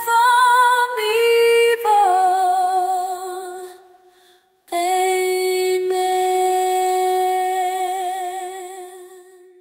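A woman's voice singing slow, long held notes with vibrato, stepping downward in pitch and fading out. After a short silence about halfway through, one long, lower note is held and slowly fades away.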